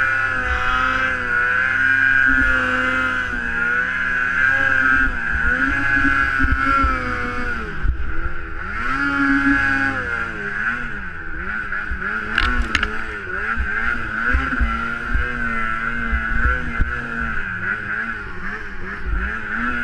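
Snowmobile engine running under throttle while climbing, its pitch rising and falling over and over as the throttle is worked.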